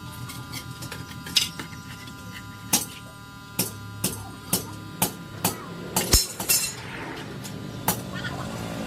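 A series of sharp knocks, about two a second through the middle, with a few scattered ones before and after.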